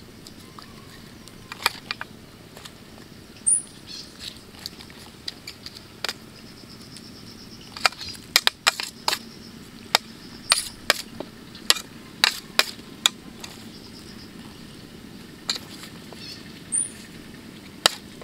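A metal spoon clinking and tapping against a stainless steel tray and the fish as it packs in the stuffing: irregular sharp clicks, thickest in the middle of the stretch.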